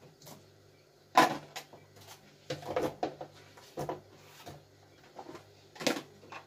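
Knife cutting raw potatoes on a wooden cutting board, with irregular knocks of the blade on the board, the loudest about a second in. Near the end, cut pieces are dropped into a plastic bowl.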